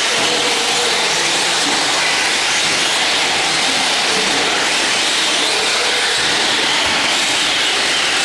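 Radio-controlled race trucks running on the track, a steady dense hiss and whine of their motors with faintly wavering pitch.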